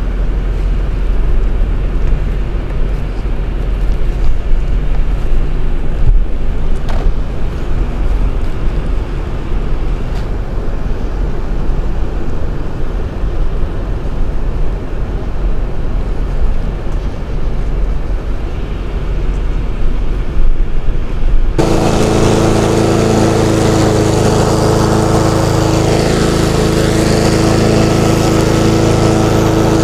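A low, noisy rumble from a Mercedes car's engine running. About two-thirds of the way through it cuts abruptly to a petrol walk-behind lawn mower running at a steady pitch.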